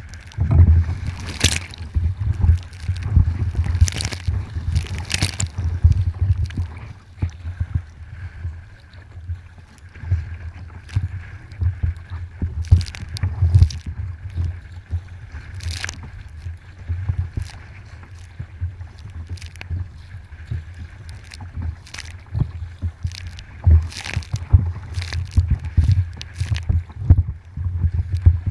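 Kayak paddle splashing and water sloshing and gurgling against the hull in irregular bursts every second or two, over a steady low rumble of wind buffeting the microphone.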